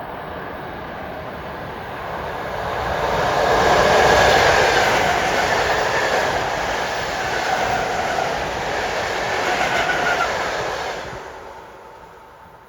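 A train passing through at speed on the rails: the noise builds to a peak about four seconds in, holds steady for several seconds, then fades away near the end.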